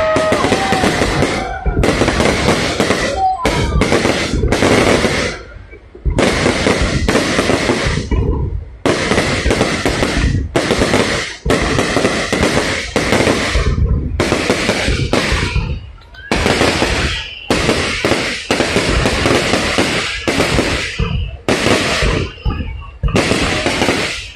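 Fireworks going off: dense crackling and popping from bursting aerial shells, loud and continuous in clusters a second or a few seconds long that break off abruptly, with brief lulls between them.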